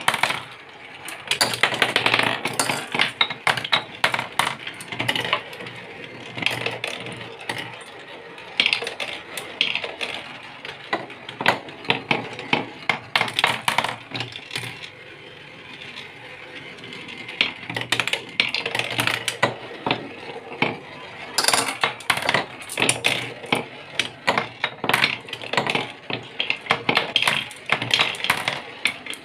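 Marbles rolling and rattling around the wooden spiral tracks of a HABA marble run, with many quick clicks and knocks against the wood as they circle and drop through the centre holes. The clatter comes in busy spells with a few quieter lulls.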